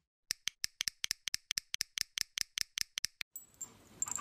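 A quick, fairly even run of sharp, light clicks, about seven a second, lasting about three seconds and then stopping, followed by a faint hiss.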